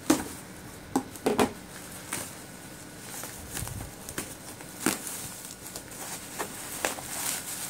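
Scissors cutting into a bubble-wrap package: a few sharp clicks in the first second and a half, then the plastic bubble wrap crinkling and rustling as it is handled, with a couple more sharp clicks later on.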